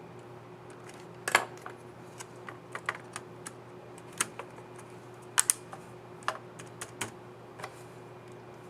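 HP Pavilion 15 EH laptop keyboard keys being pressed: about a dozen irregular sharp clicks, the loudest about a second in and a quick pair past the midpoint, over a steady low hum.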